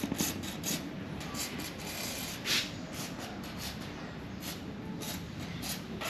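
Short hisses of a WD-40 aerosol can spraying through its straw onto motorcycle suspension and frame pivot bolts, several brief bursts with the strongest about two and a half seconds in.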